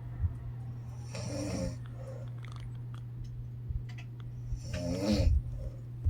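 A woman snoring in her sleep: two snores about three and a half seconds apart, the second longer and louder, over a steady low hum.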